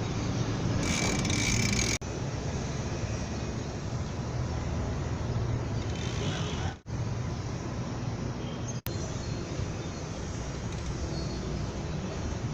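Steady road traffic noise, a low rumble with hiss. It is brighter for the first two seconds and breaks off abruptly three times, about 2, 7 and 9 seconds in.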